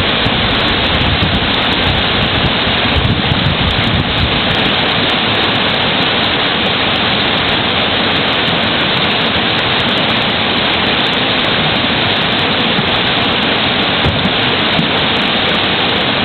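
River rapids rushing steadily: a loud, even noise of white water pouring over the rocks.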